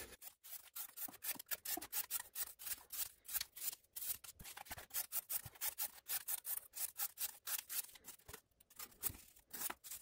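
Civivi Imperium pocket knife's blade slicing strips off thin cardboard, stroke after stroke, several quick dry cuts a second with a couple of short pauses. The factory edge is very sharp and cuts cleanly.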